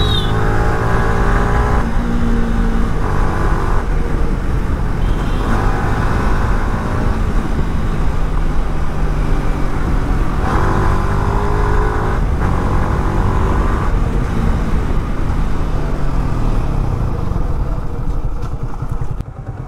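Yamaha R15 V3's 155 cc single-cylinder engine heard from the rider's seat under hard acceleration, its pitch rising in several steps as it is taken up through the gears. Later it falls as the bike eases off, with a short dip near the end before it picks up again. A heavy low rumble of wind and road noise runs under it.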